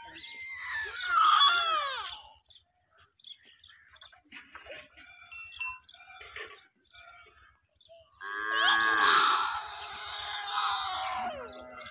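Water buffalo calling: a short call in the first two seconds, then a louder, longer call from about eight seconds in that lasts some three seconds and falls in pitch at its end.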